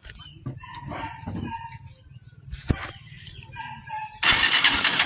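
Rooster and bird calls in the background with one sharp click near the middle. About four seconds in, a loud continuous mechanical noise starts, which is the motorcycle's electric starter turning the single-cylinder engine over for a spark test.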